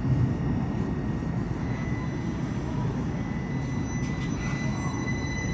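Uetliberg line electric train running, a steady low rumble, with a faint high wheel squeal growing louder near the end.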